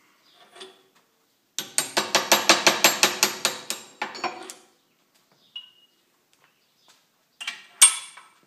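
Hand work on the drill press spindle's tooling: a rapid run of metallic ratchet-like clicks, about six a second for about two seconds. A loud, ringing metal clank comes near the end.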